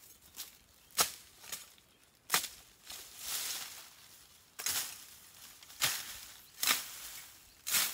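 Chopping: about six sharp strikes of a blade into wood at uneven intervals, with rustling of brush or leaves between them.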